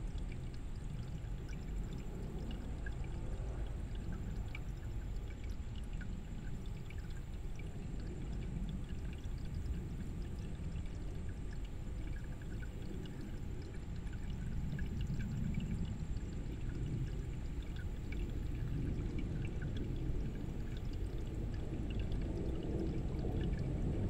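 Shallow stream running over rocks, a steady rush of water flecked with many small splashes and plinks.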